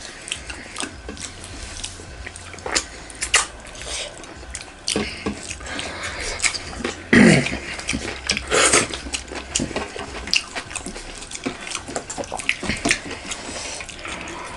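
Close-up mukbang eating sounds: wet chewing and lip smacks, with fingers squishing maida dhindo and fish curry on metal plates. A string of short wet clicks, with a few louder ones, the loudest about seven seconds in.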